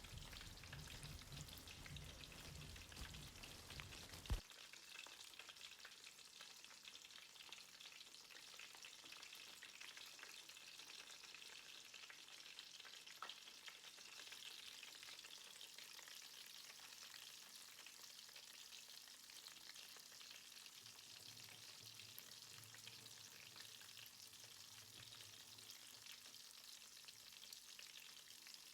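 Prawn vadai deep-frying in hot oil: a faint, steady sizzle. A sharp click about four seconds in, when a low hum underneath stops.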